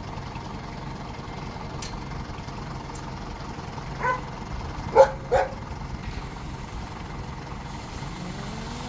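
A dog barks three short times, about four and five seconds in, over the steady low running of a vehicle engine. Near the end the engine's pitch rises steadily as it revs up.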